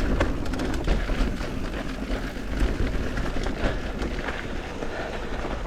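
Mountain bike riding down a dirt trail: tyres on the ground, with the chain and frame rattling in quick irregular clicks, over a steady low rumble of wind on the microphone.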